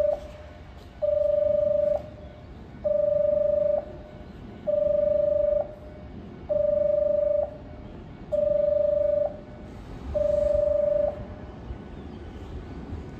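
Station platform train-approach warning tone: a steady mid-pitched electronic beep, about a second long, repeated about every two seconds for six or seven beeps, warning that a non-stopping train is about to pass. The beeps stop about 11 s in, and the low rumble of the approaching train begins to come in near the end.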